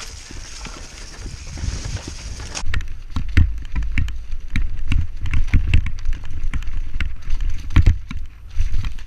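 Mountain bike rattling and thudding over a rough, rutted dirt trail at speed, with wind rushing on the microphone. About two and a half seconds in, the wind hiss drops away and the bike's irregular knocks and clatter take over, several a second with heavy low thumps.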